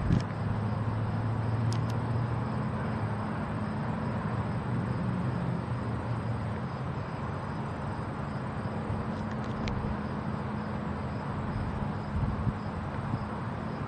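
Steady outdoor ambience: a low hum of distant road traffic and engines under a wash of noise. There is a brief low bump near the end.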